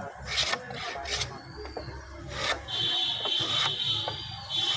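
Wood being rubbed or rasped, a few short scraping strokes, with a steady high whine joining about halfway through.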